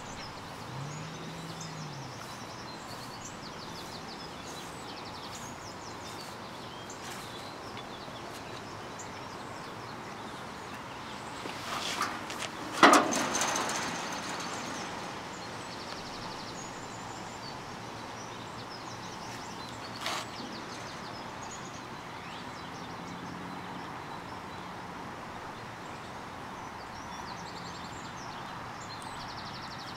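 Outdoor ambience: a steady background hiss with small birds chirping now and then. A little before halfway a few small clicks lead into one loud, sharp knock that rings out briefly, and a single fainter click follows about seven seconds later.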